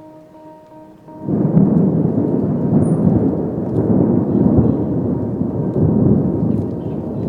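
Thunderstorm: about a second in, a loud rolling rumble of thunder sets in suddenly over heavy rain and keeps going.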